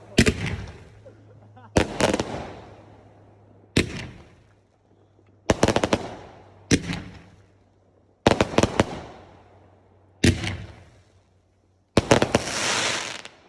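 Fireworks going off: a string of about eight sharp bangs, one every second and a half to two seconds, each trailing off in a fading echo. Near the end one burst is followed by about a second of dense crackling.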